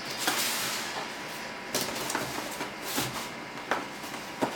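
Cardboard packaging being worked open by hand: a scraping slide of cardboard for about a second and a half, then a string of light knocks and taps as the box is handled.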